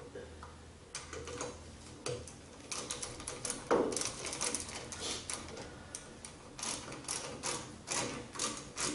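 Irregular small metallic clicks and rattles of parts being handled and fitted on a Minn Kota trolling motor's lower unit during reassembly. The clicks are sparse at first and come thicker from about three seconds in.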